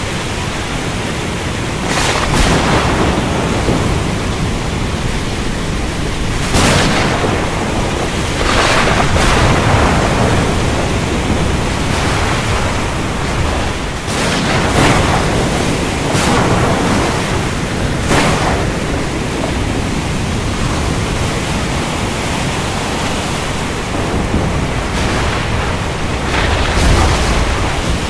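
Thunderstorm over the open ocean: a steady rush of rain and sea with a low rumble underneath, broken every few seconds by short, sharp surges of noise.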